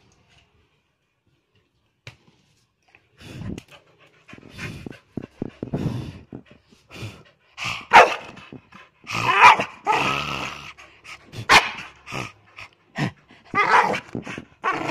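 A worked-up dog barking and yowling in loud, irregular outbursts, starting about three seconds in and growing louder after the middle.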